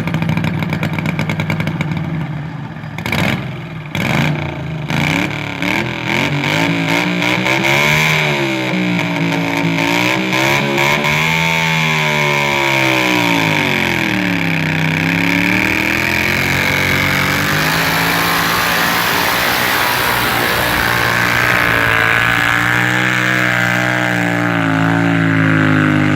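Supercharged garden pulling tractor engine running and being revved up and down, with a high whine over the engine note. It runs unevenly, with sharp pops, for the first few seconds before settling.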